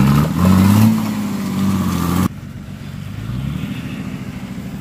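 Nissan Patrol 4x4 engine revving hard, its pitch rising and falling as the wheels spin and throw mud. About two seconds in the sound cuts off suddenly to a quieter, more distant engine note that rises briefly.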